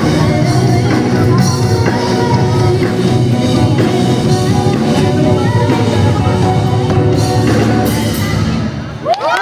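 Live band with drums and electric guitars playing a song, a woman singing lead. Near the end the song stops and the crowd begins screaming and cheering.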